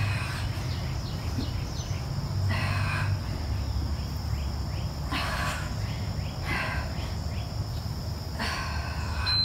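Steady high chirring of insects, with a woman's short, breathy exhalations about five times, in rhythm with her abdominal crunches.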